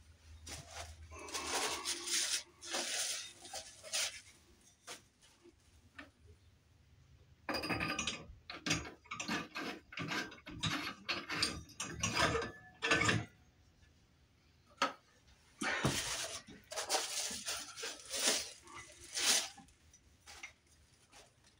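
Glass shades and the plastic socket rings of a wall light fixture being handled and fitted: clicking, scraping and light knocks in three stretches with pauses between.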